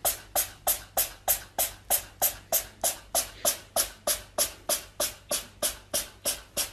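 An even series of short, sharp taps, about three a second, each fading quickly.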